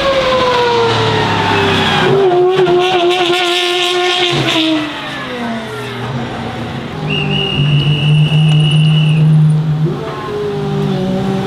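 Pagani V12 supercar engines pulling away, pitch falling as a car leaves, then one revving hard for a few seconds before its revs drop again. About ten seconds in, a V12 runs steadily at low speed.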